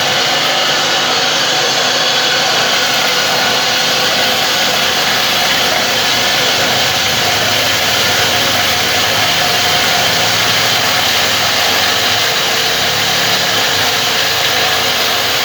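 Disk mill grinding machine running at a steady speed: a loud, even whirring noise with a steady hum beneath it.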